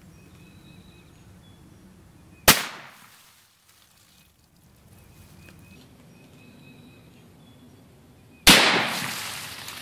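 Two sharp shots from a Ruger 10/22 semi-automatic .22 LR rifle firing CCI Stinger rounds, about six seconds apart. The second is louder and fades out more slowly.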